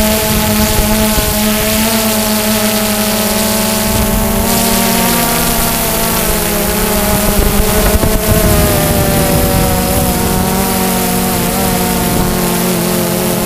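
DJI Phantom 2 quadcopter's motors and propellers buzzing steadily, heard from the GoPro slung beneath it, over a hiss of wind. The pitch sags and rises a little as the drone manoeuvres.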